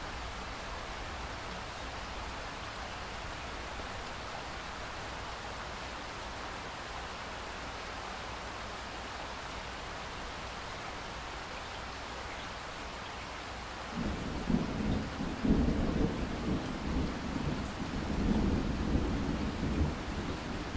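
Steady rain hiss. About two-thirds of the way in, a deep rumble of thunder sets in suddenly and rolls on in waves, louder than the rain.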